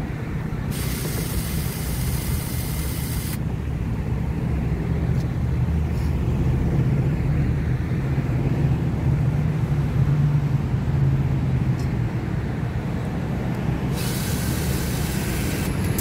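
Cordless drill/driver running in two short bursts at the screws of an RV water heater's frame, once about a second in for nearly three seconds and again near the end, each starting and stopping sharply. A steady low rumble runs underneath.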